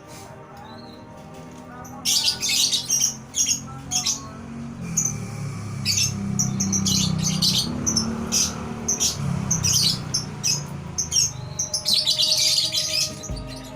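Canaries chirping: many short, high chirps in quick clusters, busiest from about two seconds in and again near the end.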